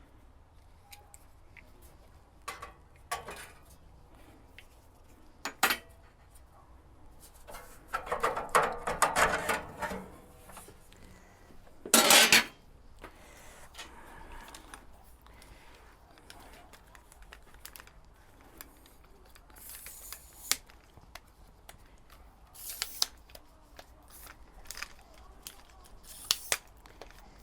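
Scattered clicks, knocks and clatter of parts and tools being handled, with a longer rattling clatter about eight seconds in and a short, loud clatter about twelve seconds in.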